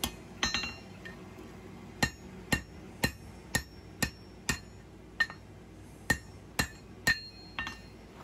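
Hand hammer striking hot steel on an anvil while forging a knife handle, about two blows a second, each with a short metallic ring. There is a brief pause about a second in before the blows resume.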